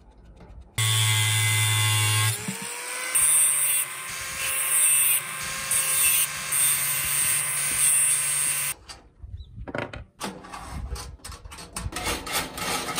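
Angle grinder with a cut-off disc cutting through threaded rod. The motor starts with a steady whine about a second in, drops in pitch as the disc bites, and grinds unevenly through the metal until it shuts off about nine seconds in. Scattered sharp clicks and taps follow.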